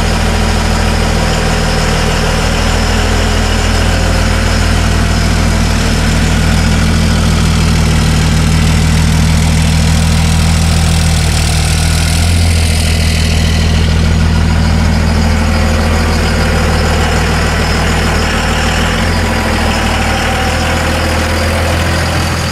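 Dual-rear-wheel pickup truck's engine idling steadily.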